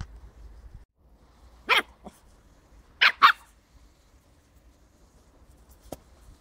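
West Highland White Terrier puppy barking: one bark, then about a second later two quick barks in a row.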